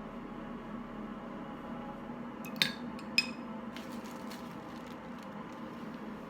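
Two light clinks of kitchenware, about half a second apart, over a steady room hum.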